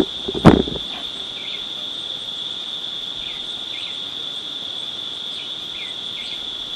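Steady high-pitched chorus of crickets. A loud sudden thump comes about half a second in, and faint short falling chirps sound a few times.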